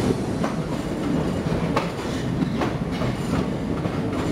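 Passenger train coaches rumbling steadily through a rock-cut tunnel, heard from an open coach door, with a few sharp clicks from the wheels on the rails.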